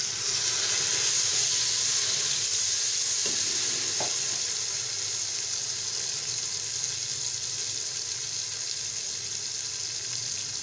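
Onion rings and freshly added chopped tomatoes sizzling in hot oil in an aluminium pressure cooker as they are stirred with a wooden spoon. The sizzle is loudest in the first couple of seconds and eases a little after that, with two light knocks about three and four seconds in.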